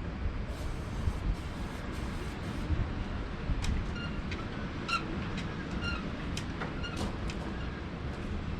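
Detroit diesel truck engine turning over on the starter without catching: a steady low rumble, with a few sharp clicks in the middle.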